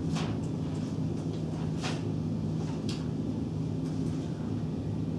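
Classroom room tone: a steady low hum, with a few brief paper rustles.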